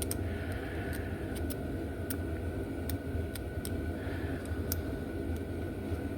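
Small irregular clicks and ticks from handling and cleaning a slot car's rear axle and chassis, over a steady low background hum.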